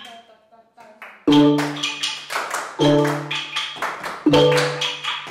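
Orff xylophones played by a group in a repeating pattern, starting a little over a second in. A low bass-bar note rings about every one and a half seconds, with quicker mallet strokes and hand claps between.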